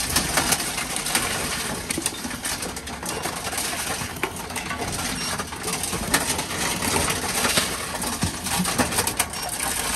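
Envipco Ultra-48 reverse vending machine running as it takes in and processes returned beverage containers: a steady mechanical clatter with many sharp clicks and knocks.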